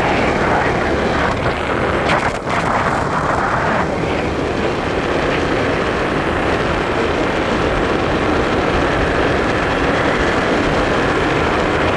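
A Honda motor scooter being ridden along a road: a steady rush of its small engine running together with wind and road noise, with a brief dip in level about two seconds in.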